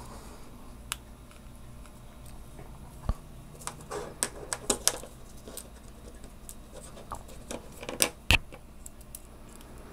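Parts of an opened Okuma Epixor spinning reel being handled and fitted together: scattered light clicks and taps of small plastic and metal pieces, a cluster of them around four to five seconds in and the two sharpest knocks about eight seconds in.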